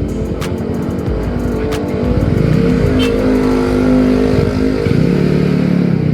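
A motorcycle engine running and revving up and down twice, with a few sharp clicks over it.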